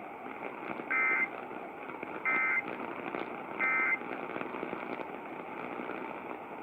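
Emergency Alert System end-of-message data bursts: three short, buzzy digital-tone bursts about 1.3 seconds apart, signalling the end of the tornado warning message, over steady broadcast hiss.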